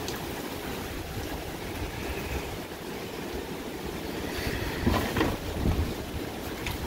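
Strong thunderstorm wind gusting, with a few gusts buffeting the microphone about five seconds in.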